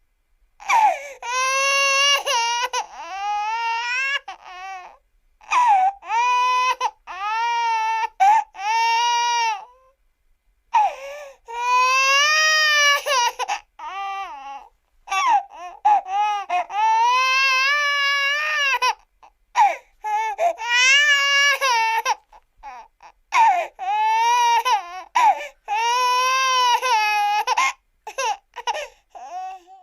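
Cartoon sound effect of Dumbo the baby elephant crying: a string of high-pitched, wavering wails and sobs with short breaks between them, like an infant's cry.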